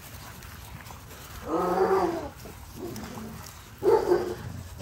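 American bully puppies growling at each other while play-fighting: a growl nearly a second long about a second and a half in, and a shorter, louder one near the end.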